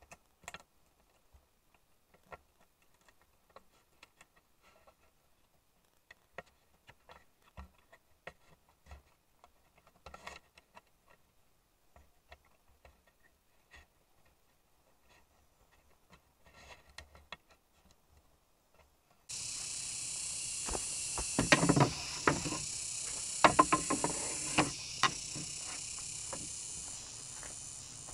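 Faint scattered clicks and taps. About two-thirds of the way in, a steady high insect chorus starts suddenly, and a run of loud knocks on wood follows, as in bamboo-building work.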